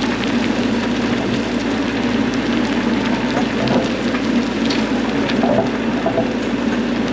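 Bobcat E42 mini excavator's diesel engine running steadily under load while digging, with scattered clicks and rattles of dirt and rock.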